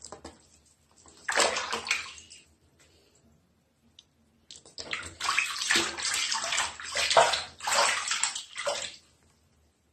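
Water sloshing and splashing in a plastic basin as a small dog is bathed by hand, the hands rubbing its wet head and scooping water over its back. One burst of splashing about a second in, then a longer run of splashing from about five seconds to nine.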